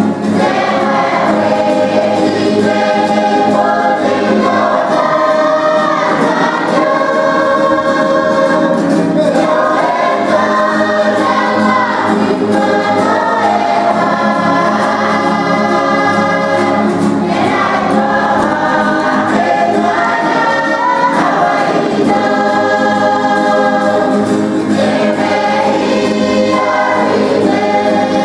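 A large mixed choir of men's and women's voices singing together in harmony, accompanied by acoustic guitars.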